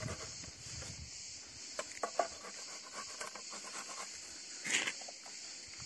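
Halved tomatoes being rubbed down a plastic box grater into a steel bowl: wet, squelching rasps with a few sharp ticks, and a brief louder scrape near the end. Insects chirr steadily behind it.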